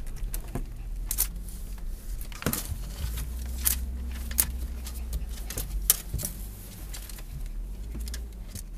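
Inside a car: a steady low engine hum with scattered sharp clicks and rustles of handling, claws and paws on the wheel, or keys.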